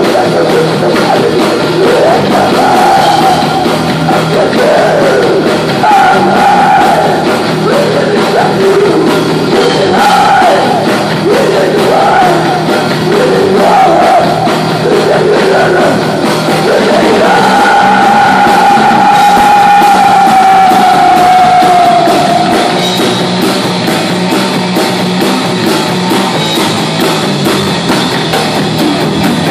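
Heavy metal band playing live: distorted electric guitar, bass and drums under shouted and sung vocals. About two-thirds through comes one long held sung note that sags slightly in pitch, after which the vocals drop out and the band plays on.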